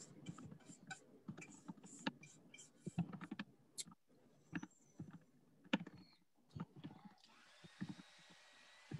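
Chalk-paint brush working paint onto a cake pan: irregular short scratchy strokes and light taps. A faint steady whir comes in about seven seconds in, rising briefly in pitch as it starts.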